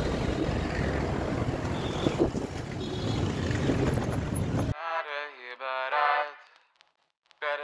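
Wind buffeting a phone's microphone, with engine and road noise from a scooter ride through traffic. About two-thirds of the way through it cuts abruptly to a song with a man singing, which breaks off briefly and then resumes near the end.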